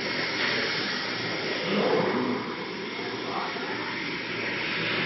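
Stainless-steel sesame paste mill (colloid mill) running with a steady, even whirring noise.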